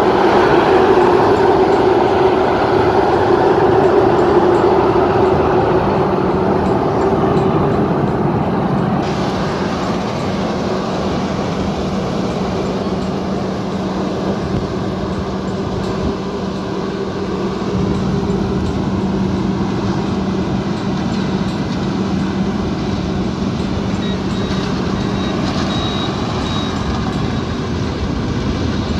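Rice combine harvester running steadily under load, its engine giving a constant low hum over the clatter of the machinery.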